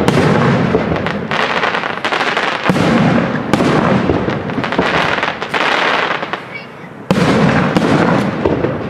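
Aerial firework shells bursting in a display: several sharp bangs over a continuous loud, noisy wash of bursts and echo, easing off briefly before a loud burst about seven seconds in.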